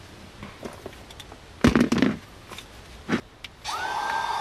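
A few knocks and handling thumps, then near the end a small electric motor spins up with a quick rising whine and runs on steadily, like a blower or dryer.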